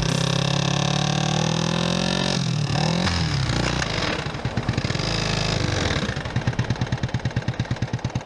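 Kawasaki Ninja 650R parallel-twin engine running: steady at first, revved and let back down about three seconds in, then settling into an even, pulsing idle near the end.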